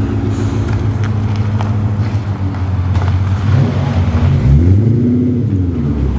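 Car engine running, revving up about halfway through and easing back off near the end.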